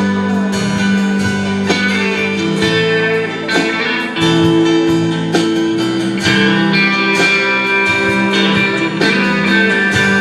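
Live band playing an instrumental break between sung verses, led by guitars with plucked and strummed notes over held chords.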